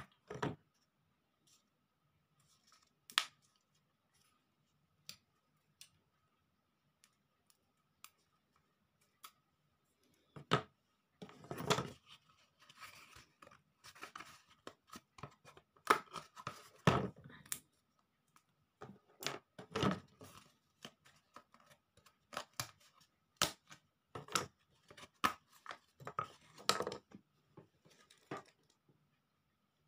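Scissors snipping a thin craft sheet, with the sheet rustling as it is handled. Single sharp snips come now and then at first, then busier runs of cutting and rustling from about a third of the way in.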